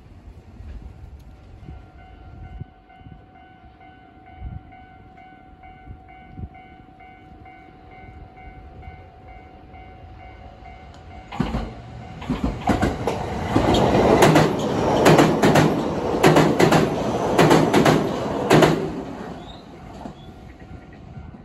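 Japanese level crossing warning bell ringing in a steady repeating pattern, then a Sanyo Main Line train passes over the crossing about halfway through, loud for several seconds with the rapid clacking of wheels over rail joints, before fading back to the bell.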